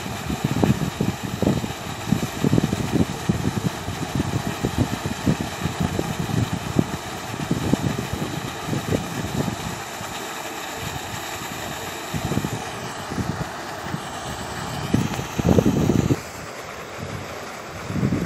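Floating fountain's water spout splashing steadily into the lake, with wind buffeting the microphone in uneven low gusts. The splashing drops away about sixteen seconds in.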